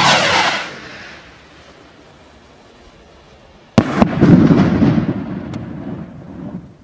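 A display firework rocket (Absolute Fireworks Final Assault) whooshes up on lift-off, the rush falling in pitch and dying away within the first second. Nearly four seconds in it bursts with a sharp bang and a second crack, followed by an echoing rumble that fades over a couple of seconds.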